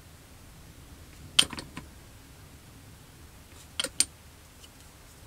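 Small, sharp clicks and taps of hard plastic model-kit parts and tools being handled and put down. There is a quick group of three or four about a second and a half in, and two or three more about four seconds in.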